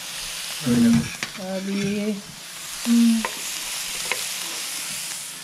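Pork belly sizzling on a tabletop grill pan, a steady frying hiss, with a few light clicks.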